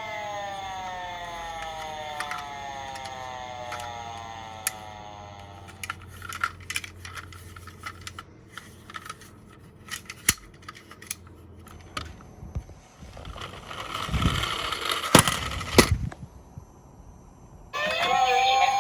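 Toy police car's electronic siren sliding steadily down in pitch and fading over the first six seconds. Then small plastic clicks and clatter from the toy cars, a louder rattling run with sharp knocks in the second half, and a siren tone starting again just before the end.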